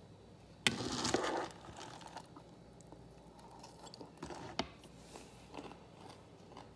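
A person eating from a bowl with a spoon: a sharp clack about a second in, then about a second of noisy crunching, followed by a few light clicks and taps.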